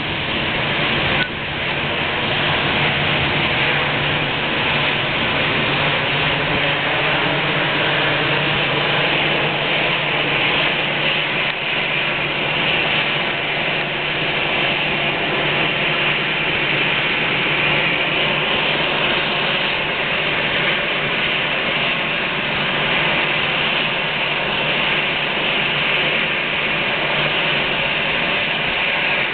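Airbus A319 jet engines running at low taxi power as the airliner rolls onto its stand: a steady rush with a faint whine, getting louder about a second in.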